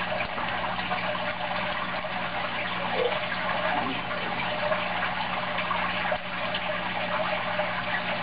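Steady background hiss with a faint low hum underneath, unchanging throughout.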